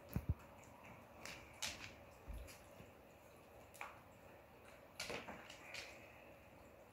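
Cats chewing dog jerky treats: faint, irregular wet clicks and smacks a second or so apart, with a couple of low thumps near the start.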